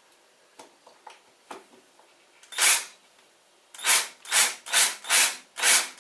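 A screw being worked into wood: a few light clicks, then one harsh rasping burst, then five more in a row at about two a second.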